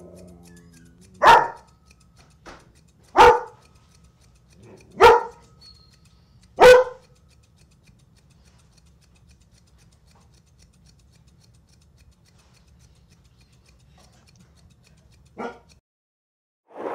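A dog barking: four single loud barks spaced about two seconds apart, stopping after about seven seconds.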